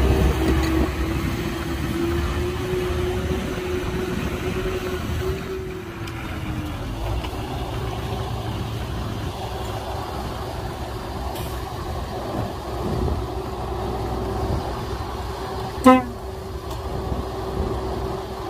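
Heavy diesel earthmoving machinery running with a low rumble and a steady whine that wavers for the first few seconds, then holds level. A single short vehicle horn toot sounds near the end.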